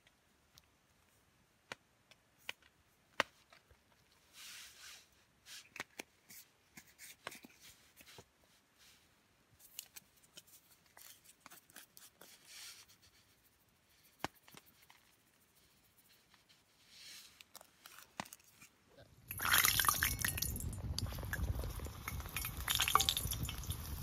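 Faint scattered clicks and soft handling sounds while flour is worked by hand in a steel bowl. About nineteen seconds in, rounds of dough start frying in hot oil in a pan over a campfire: loud, steady sizzling with crackles.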